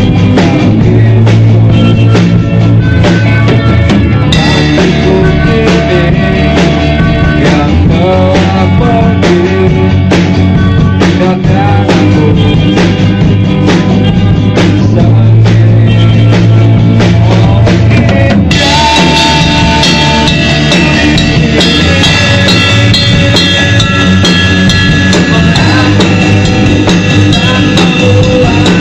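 Live rock band playing loudly: electric guitar over a pounding drum kit with bass drum.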